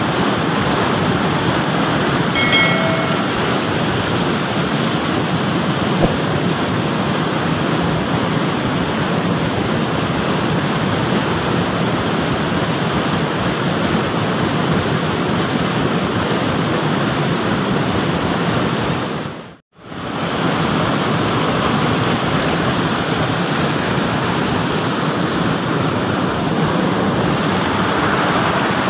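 Fast-flowing stream rushing over rocks: a loud, steady rush of water. It breaks off for a moment about two-thirds of the way through.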